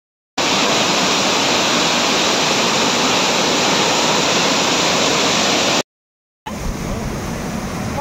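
Waterfall rushing: a steady, loud roar of falling water that cuts off suddenly almost six seconds in, then after a short gap a second, quieter stretch of rushing water with more low rumble.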